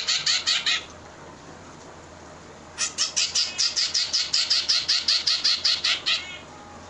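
Zebra finch fledgling's hunger begging calls: rapid, high-pitched chirps at about six a second. They come in two runs: the first stops just under a second in, and the second starts near three seconds and stops about a second before the end.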